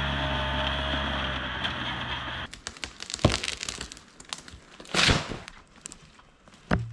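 Snowmobile engine running steadily, cut off suddenly about two and a half seconds in. Then a tree being felled: scattered cracks of wood and a short crash about five seconds in.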